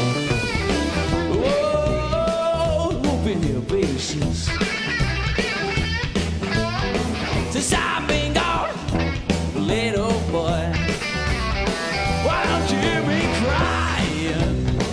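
Rock band playing a driving blues-rock number: electric guitar, bass and drums. A held note slides upward about two seconds in.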